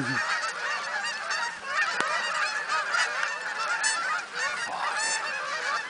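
A flock of Canada geese honking, many calls overlapping without a break.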